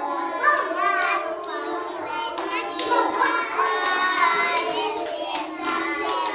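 A group of small children singing together, with scattered hand claps that come more often in the second half.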